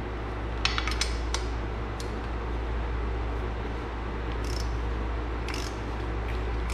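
Small metallic clicks from a hex key working a bolt that fastens a bottle jack to a steel press bracket: a quick cluster about a second in and a few fainter ones later. A steady low hum runs underneath.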